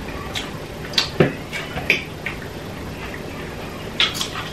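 Forks clinking and scraping on ceramic plates while people eat: a scatter of short sharp ticks, with a brief low vocal sound about a second in.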